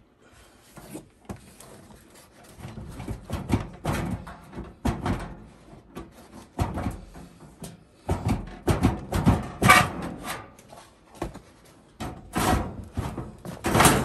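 Sheet-metal body of a Suburban RV propane furnace being worked and slid out of its outer housing: irregular metal scraping, rattling and knocking as it catches on a lip, with sharper clunks in the second half.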